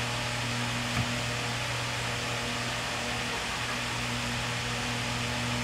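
A machine running steadily in the room, like a fan: a low hum with an even hiss that does not change. A faint click comes about a second in.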